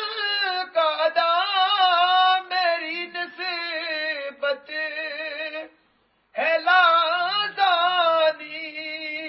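A man singing a devotional Sufi song unaccompanied, drawing out long, wavering notes, with a short break for breath about six seconds in before he comes back in.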